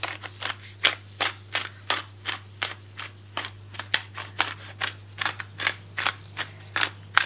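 Hand-twisted pepper grinder grinding black pepper: a steady run of short crisp grinding clicks, about three a second.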